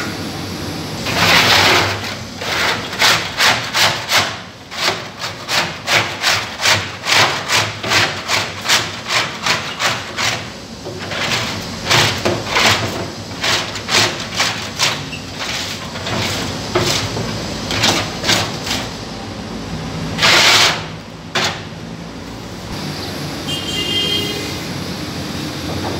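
Hands working very wet sangak dough in a large tub: a regular swishing, slapping stroke about twice a second that stops about fifteen seconds in, over a steady background noise.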